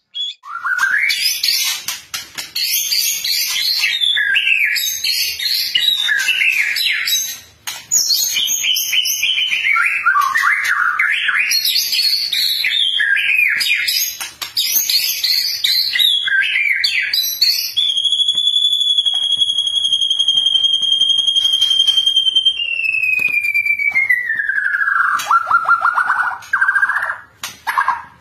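White-rumped shama (murai batu) singing, a dense run of fast-changing whistled phrases that sweep up and down, broken by brief pauses. In the last third a long, steady high whistle is held for several seconds, then slides down into a fast, lower trill.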